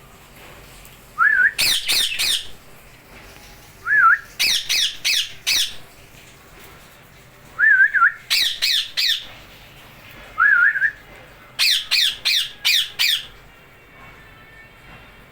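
Ringneck parrot calling: a short warbling note, then a quick run of three or four shrill screeches, repeated four times about every three seconds.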